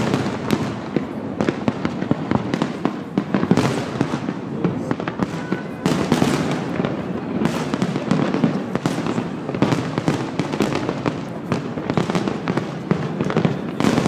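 Aerial fireworks display: rapid, overlapping bangs and crackling bursts, one after another without a break.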